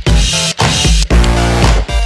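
Music with a strong bass line.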